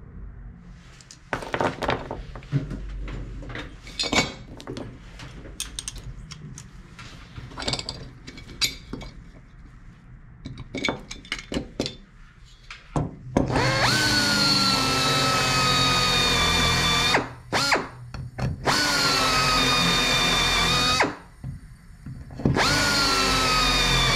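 Clecos snapping in with cleco pliers and aluminum parts clinking, as sharp scattered clicks. Then a handheld power drill runs three times, drilling through an aluminum angle into a wooden backing block. Each run spins up in pitch and sags a little under load.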